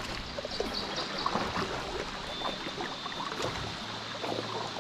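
Water trickling and lapping around a canoe, with scattered small knocks and clicks against the hull.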